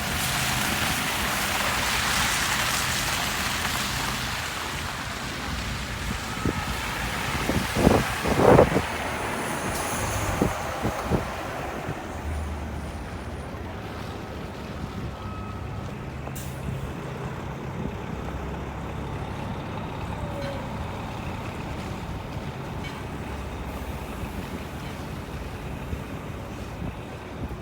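City street traffic with a heavy vehicle such as a truck or bus. A long hiss of air brakes at the start, two loud short bursts about eight seconds in, then an engine idling with a steady low hum.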